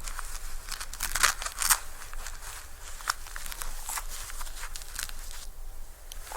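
Disposable diaper crinkling and rustling as it is handled during a diaper change, with a cluster of sharper crackles about one to two seconds in.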